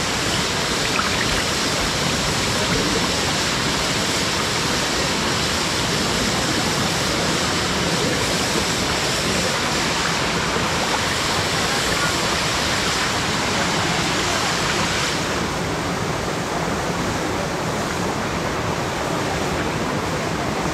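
Waterfall rushing: a steady, loud wash of falling water that turns duller about fifteen seconds in as the higher hiss drops away.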